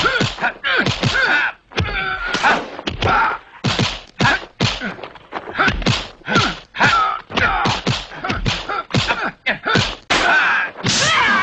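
Kung fu film fight sound effects: a rapid run of punch and kick impacts, about two a second, mixed with the fighters' grunts and shouts.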